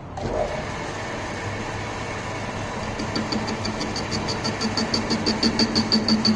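Manual lathe running with a steady hum. About halfway through, a regular high-pitched ticking starts at about six beats a second and gets louder toward the end, as the tool works the end of an iron rod.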